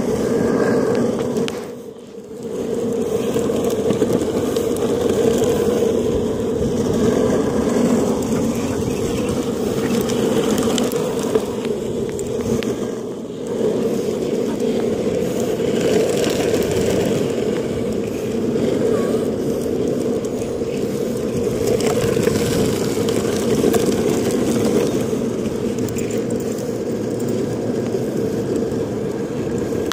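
Longboard wheels rolling fast over asphalt: a steady, loud rumbling roar that briefly drops away about two seconds in and again around thirteen seconds in.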